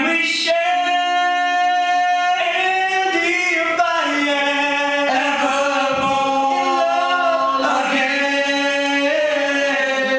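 Three male voices singing a cappella in close harmony into handheld microphones, holding long chords with slow bends in pitch.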